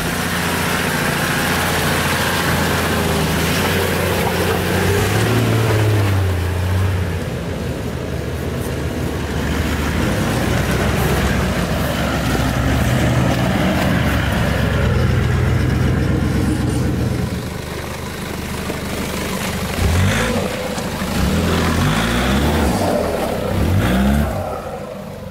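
Four-wheel-drive vehicles driving through a muddy bush track, their engines running under load. Near the end the revs rise and fall several times.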